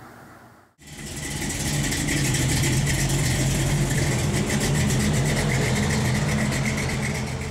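Car engine idling steadily with an even, rapid firing pulse. It fades in about a second in and begins to fade out near the end.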